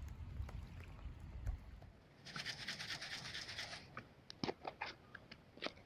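Wind rumbling on the microphone. Then comes a second and a half of scratchy rustling, and a run of sharp clicks, as a plastic food tub's lid is handled and prised open.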